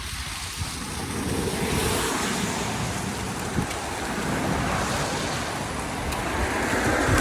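Floodwater rushing and swirling down a cleared street drain, a steady noisy wash that swells slightly near the end.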